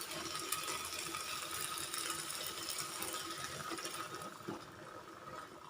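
Chicken kurma heating in the pan with the first coconut milk just poured in, giving a soft steady sizzling hiss with faint crackles that fades toward the end.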